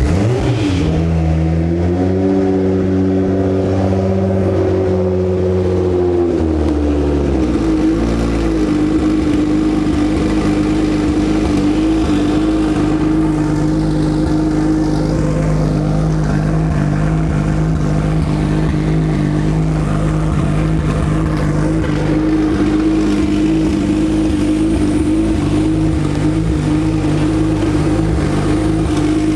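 Kia Stinger 3.3-litre twin-turbo V6 starting up after an oil change, its oil system primed by cranking beforehand: the revs rise as it catches, it holds a fast idle for about six seconds, then drops to a lower steady idle that runs smoothly.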